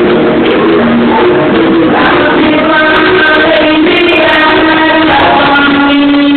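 Loud live music with a singer holding long notes, amplified through a sound system in a large hall.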